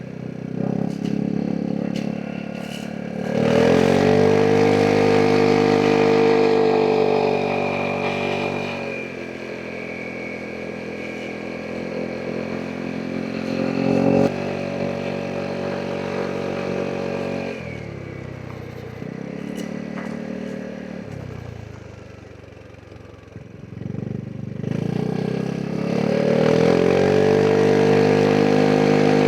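Vespa GTS 300 SuperSport scooter's single-cylinder four-stroke engine accelerating hard a few seconds in, then easing to a lower, steadier note. It falls away to its quietest about three-quarters through, then pulls hard again near the end.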